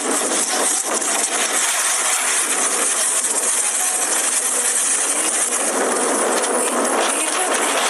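Water rushing and spraying as an amphibious bus ploughs into the river and pushes a bow wave, a steady hiss of spray.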